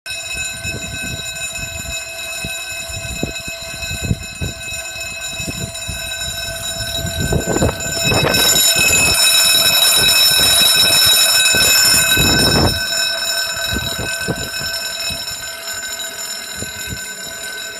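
Level crossing alarm bells ringing continuously, the warning that the crossing sequence has started and a train is approaching. A louder rushing noise swells in about seven seconds in and cuts off suddenly some five seconds later, over irregular low thumps.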